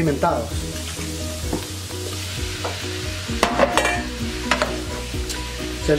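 Raw, salted and peppered shrimp going into hot oil in a nonstick frying pan with diced carrot, garlic and green onion, sizzling steadily. A few sharp knocks come a little past halfway.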